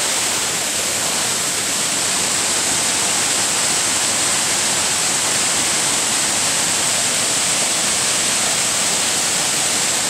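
Tiered waterfall rushing steadily: a dense, even wash of falling water that does not change.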